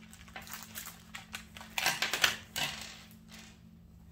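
Small plastic diamond-painting tools (drill pens, wax and tweezers) clicking and clattering as they are tipped out of a drawstring bag onto a wooden table, with a louder rustle of packaging about two seconds in.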